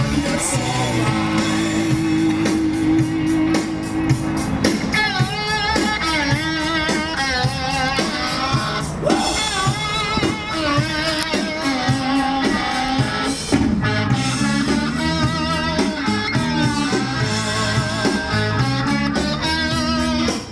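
Rock song with guitar and a singing voice that comes in about five seconds in, over a steady beat.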